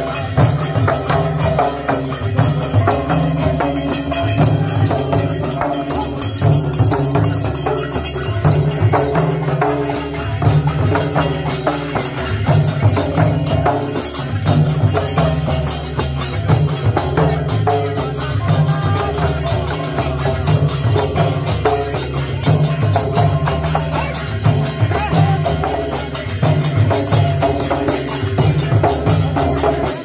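Several large barrel drums (mridang) beaten together by hand and stick in a steady, repeating folk rhythm, with a jingling metallic shimmer over the drumming.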